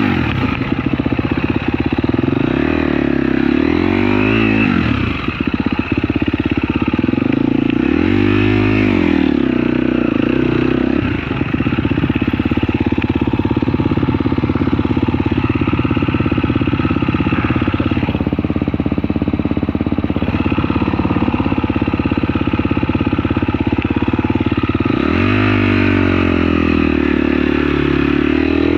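Dirt bike engine running under load on a trail ride, revving up and dropping back several times as it pulls through the gears, with a steadier stretch in the middle.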